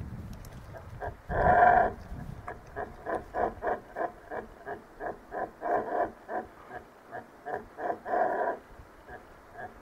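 Fiordland wapiti bull calling: one loud call about a second in, then a rapid series of short grunting calls, about three or four a second, that stops about a second before the end.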